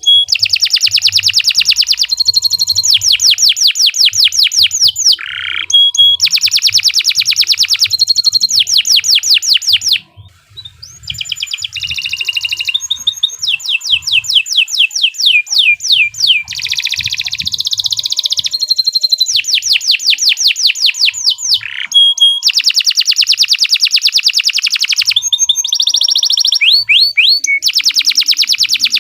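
Domestic canary singing a long, loud song of rapid trills, each a fast run of repeated notes, broken by short held whistles. The song breaks off briefly about ten seconds in, then carries on.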